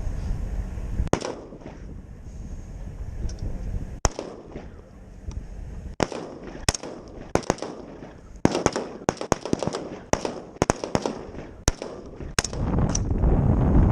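Gunfire from several rifles on a firing line: single sharp shots at uneven intervals, a few in the first seconds and then coming thick and overlapping through the middle. Near the end, wind buffets the microphone.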